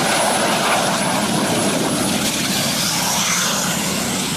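Helicopter gas turbine engine fitted in a minivan, running loud: a rushing noise with a steady high whistle. Over the second half a high whine climbs in pitch as the van pulls away under the turbine's power.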